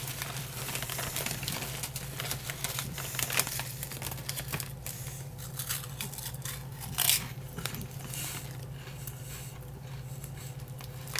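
Crinkling of a foil-lined potato chip bag as a hand rummages in it for a chip, in many short crackles. A chip is bitten and crunched about six to seven seconds in.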